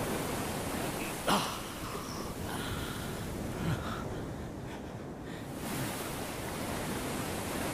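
Sea surf breaking and washing over shoreline rocks, a steady rushing noise, with a short sharp sound about a second in.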